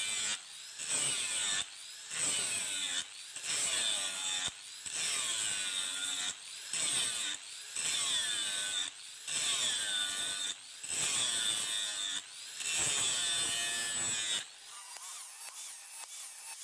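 A hand tool worked in steady back-and-forth scraping strokes, about one a second. About fourteen seconds in this changes to a lighter, quicker scraping.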